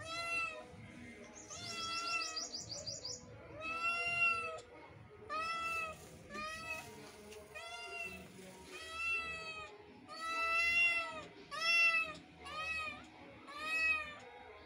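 Kitten meowing over and over, about ten calls a second or so apart, each one rising and falling in pitch.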